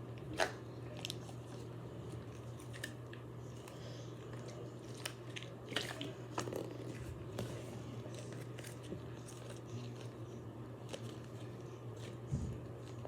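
Fidget toy being handled, giving scattered, irregular small clicks and crackles, the sharpest about half a second in and again near the end, over a steady low hum.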